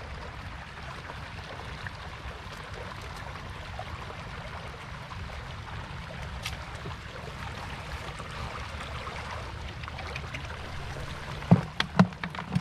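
Shallow floodwater running steadily over the ground. Near the end, a few sharp, loud knocks as a wet fishing net full of small fish is pushed into a plastic bucket.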